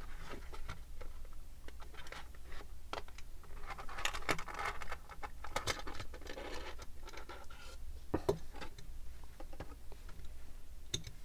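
Clear plastic clamshell packaging of a small diecast model car being handled and pulled apart: irregular plastic crackling and scratching with scattered light clicks and taps.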